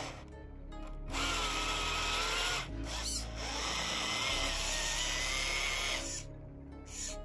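Small electric drive motor and gearbox of an RC model tractor whining under load as it pulls a disc harrow through sand, the pitch wavering as the load changes. It drops away twice, shortly after the start and again about six seconds in. Background music plays underneath.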